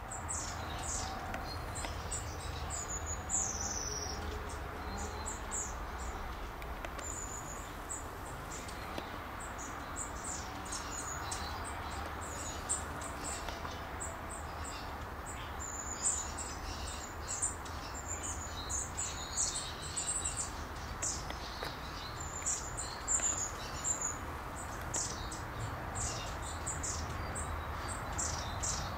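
Small birds chirping throughout with many short, high calls, some of them falling in pitch, over a steady low rumble.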